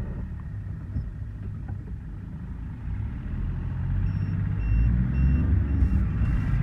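Mahindra Bolero diesel engine running with a low rumble, fitted with freshly replaced and coded injectors, getting louder about halfway through as the vehicle moves off. From about four seconds in, a warning beeper sounds about twice a second.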